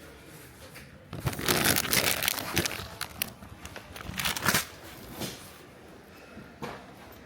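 Crinkling and rustling handling noise close to the microphone, in two bouts: a longer one from about a second in and a shorter one around four seconds in, with a few faint rustles after.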